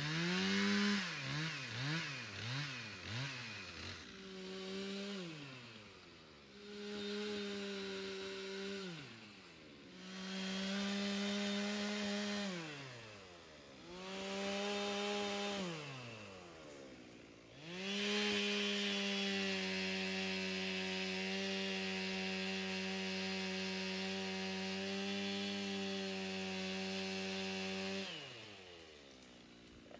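Gas chainsaw cutting saplings. Its engine revs to full throttle and falls back toward idle about six times, with quick throttle blips in the first few seconds. Near the end it holds one long, steady cut of about ten seconds, then drops off.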